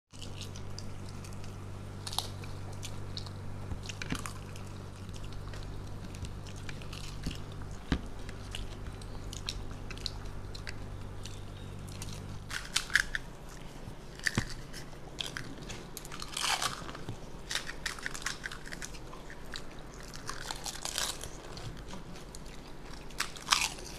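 Close-miked crunching and chewing of crisp fuchka (pani puri) shells being bitten and eaten, with wet mouth sounds between the sharper crunches. A low steady hum runs underneath and stops about halfway through.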